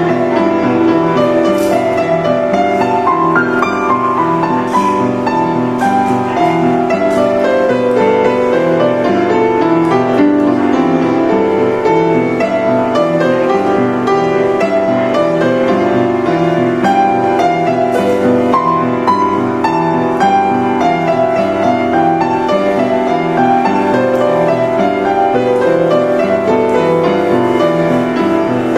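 Upright piano being played continuously: a flowing passage with repeated falling runs of notes over a steady lower accompaniment.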